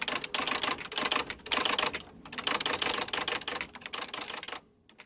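3D-printed full-auto Nerf blaster firing in bursts, its pusher mechanism making rapid typewriter-like clicking. There is a short pause about two seconds in, and the sound cuts off suddenly near the end.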